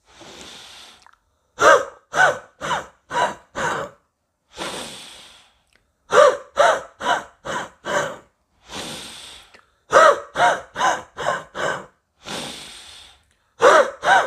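A man breathing in once, drawn out for about a second, then forcing the air out through his mouth in five short, sharp huffs about half a second apart; the cycle repeats three times and starts again near the end. It is a breathing exercise meant to loosen cough from the lungs.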